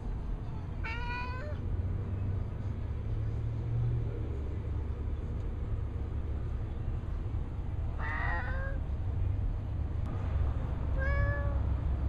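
Cat meowing three times, short calls about 1 second in, 8 seconds in and 11 seconds in, over a steady low rumble.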